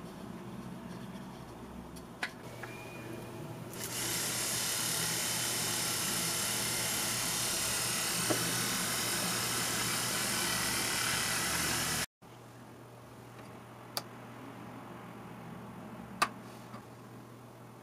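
Small DC motor starting about four seconds in and running at a steady speed with a high whir, driving a 3D-printed Archimedes screw inside a plastic tube; it stops abruptly. Afterwards there are a couple of sharp clicks.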